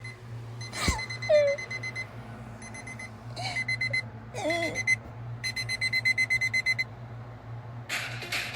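Alarm clock beeping in fast runs of high electronic beeps, stopping and starting several times. A knock about a second in is followed by a short falling sound, the loudest moment, and a few more brief sliding sounds come in the gaps between beeps.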